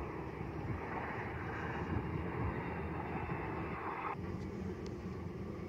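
Fokker 100 jet airliner's engines on landing, a steady rushing noise mixed with wind on the microphone. The noise drops away abruptly about four seconds in.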